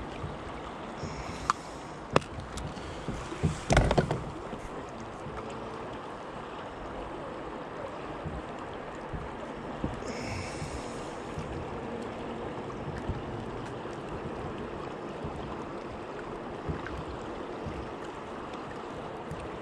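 Steady rush of river water flowing around a small boat. In the first four seconds there are a few sharp clicks and a louder knock as a plastic fly box is handled.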